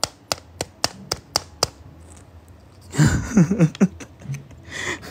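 Fingernails tapping a sealed foil photocard packet, about eight sharp clicks in quick succession. The packet feels strangely heavy, and the tapping is done to hear whether it holds a gold card. About three seconds in, a brief loud burst of a person's voice.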